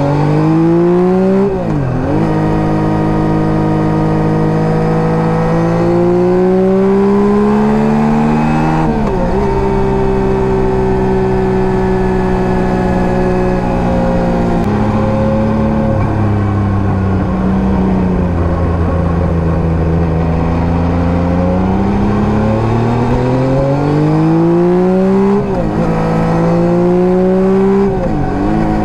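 Yamaha MT-09 third-generation 890 cc inline-three engine running through an SC Project STR-1 exhaust while riding. The pitch climbs under acceleration and drops sharply at upshifts, about two seconds in and again near nine seconds. It holds steady while cruising, falls as the bike slows, then climbs through two more quick shifts near the end.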